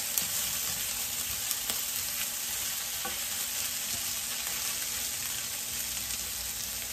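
Sliced Maultaschen with diced bacon and red onion frying in butter in a large pan, sizzling steadily while a spatula stirs them, with a few light clicks of the spatula against the pan.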